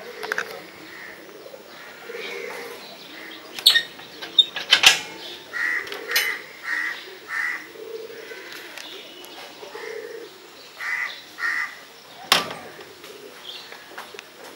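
Crows cawing repeatedly in short calls. A few sharp clicks cut in about four to five seconds in and again about twelve seconds in.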